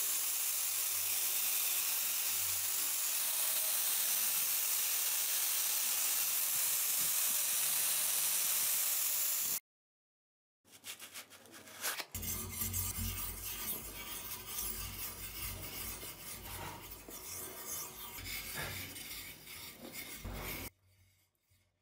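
Angle grinder with a sanding disc running against the bare steel of a cleaver, a steady hiss for about ten seconds that stops abruptly. After a second of silence come a few light ticks, then about eight seconds of uneven rubbing and scraping handling noise.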